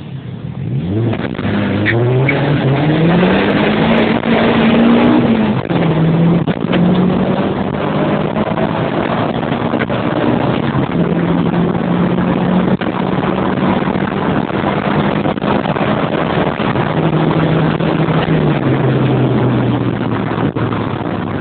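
Car engine pulling away from a standstill. The revs climb for about four seconds, drop sharply at a gear change, then hold fairly steady while cruising, easing lower near the end.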